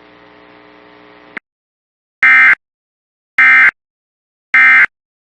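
Three short, identical bursts of Emergency Alert System SAME data tones, about a second apart: the warbling end-of-message code that closes an EAS warning. Before them, a faint hum of the broadcast audio cuts off with a click.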